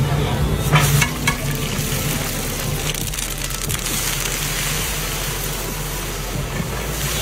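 Sliced onions frying in a large pot of hot oil: a steady, loud sizzle, with a couple of sharp knocks about a second in and a low hum underneath.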